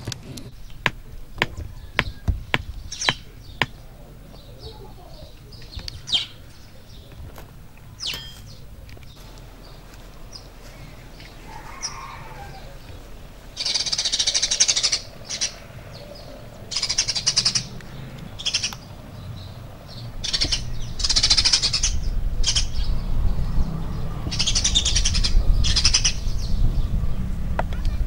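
Birds chirping in short loud bursts, with a few sharp clicks in the first seconds and a low rumble building near the end.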